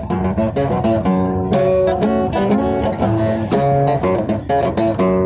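Acoustic guitar strummed, with a melody of held notes over it, the notes and chords changing about every half second.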